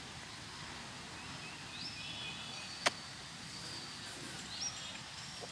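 Outdoor ambience: a steady background hiss with short, high bird chirps that rise and then hold, about every couple of seconds. A single sharp click about three seconds in is the loudest sound.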